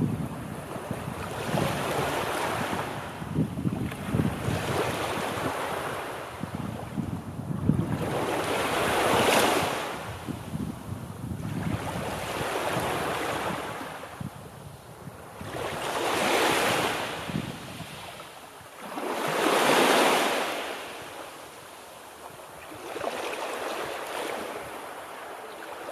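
Ocean surf: waves breaking on the shore one after another, each swelling to a rush and then fading, with the loudest breakers about a third of the way in and again past the middle.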